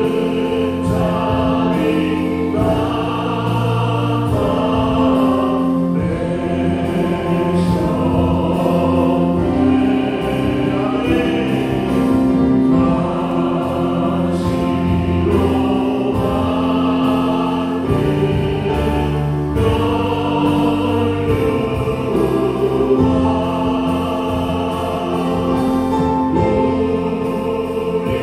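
A church worship band of Yamaha Montage 8 keyboard, bass guitar and drums plays a slow hymn while a group of voices sings along in long held notes.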